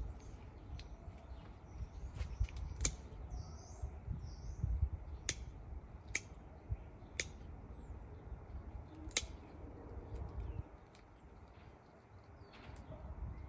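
Pruning shears snipping succulent stems: several sharp clicks spread a second or two apart, over a low rumble, with faint bird chirps.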